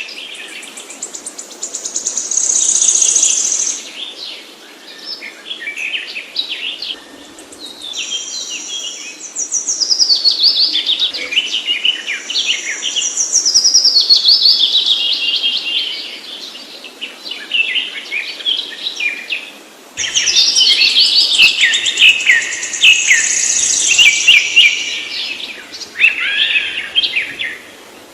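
Songbirds singing: phrases of fast, high chirps and trills, many sliding down in pitch, with short gaps between phrases. About 20 s in, a different recording with more low background noise begins.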